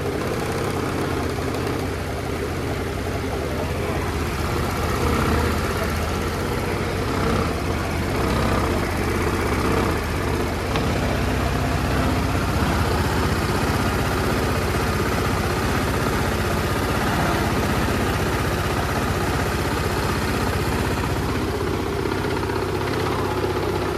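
Kymco Racing S150 scooter's single-cylinder engine idling steadily.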